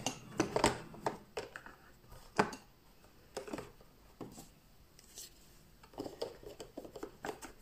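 Irregular clicks and light knocks of makeup items and their cases being picked up, opened and set down.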